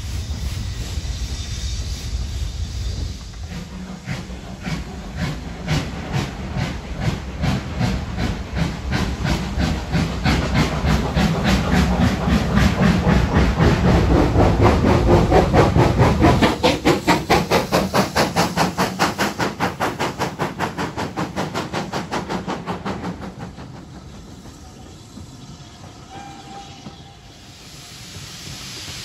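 Steam locomotive working hard, its exhaust beats coming about four a second, growing louder to a peak about halfway through and then fading away. Near the end a hiss of steam rises.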